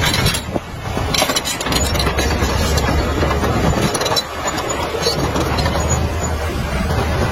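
Heavy diesel earthmoving machinery running: a steady low engine note under dense mechanical noise, dipping briefly about half a second in and again around four seconds.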